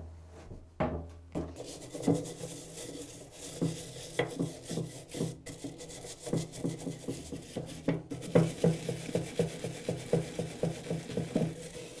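Plastic scraper scraping old paint off a metal fire alarm housing in short repeated strokes, coming faster in the second half, at about three strokes a second.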